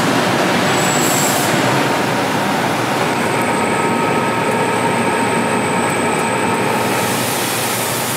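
Oxy-fuel welding torch flame burning with a loud, steady rushing hiss that starts abruptly and eases off slightly toward the end.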